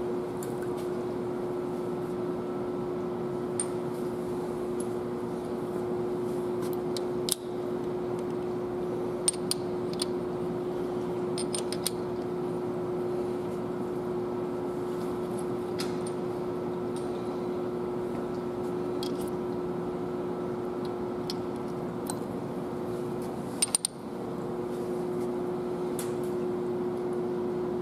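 Scattered light metallic clinks, some in quick pairs, as steel valve crossheads and other parts are handled and set on an ISX cylinder head. A steady hum with one held tone runs underneath.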